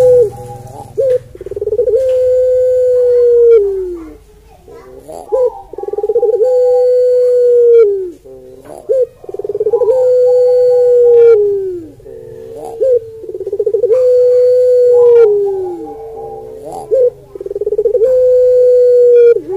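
Barbary dove (puter pelung) cooing: long, drawn-out coos of about two seconds each that fall in pitch at the end, one about every four seconds, with short notes between them.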